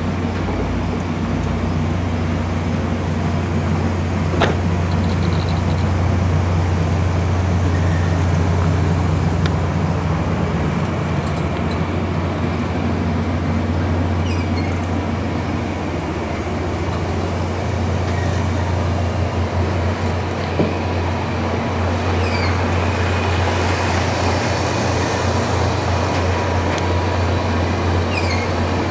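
VIA Rail stainless-steel passenger cars rolling past close by: a steady rumble of steel wheels on rail, with a couple of sharp clicks.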